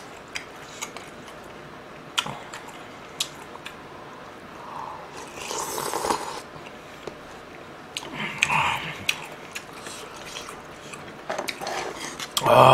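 Close-miked eating: a spoon clicking against the stew bowl and rice bowl, a slurp of kimchi stew with rice about six seconds in, then chewing.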